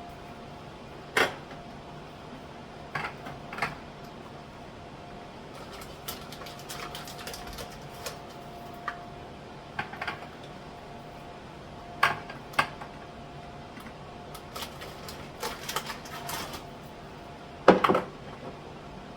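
Irregular knocks and clicks of jars and containers being picked up and set down in a kitchen cupboard, with a quick run of small clatters past the middle and the loudest knock near the end. A faint steady hum runs underneath.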